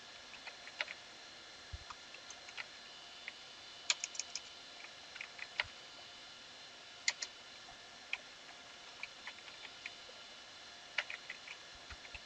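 Computer keyboard typing: scattered single keystrokes and short runs of a few keys with pauses between, over a faint steady hiss.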